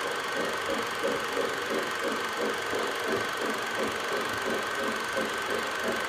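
Lionel O gauge model steam locomotive running with a rhythmic chuff about three or four times a second, over a steady hiss and a thin high whine.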